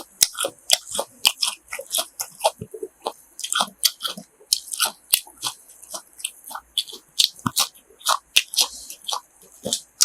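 Close-up chewing of crunchy grilled pork offal: quick, irregular crunches and wet chewing, several a second, with no pause.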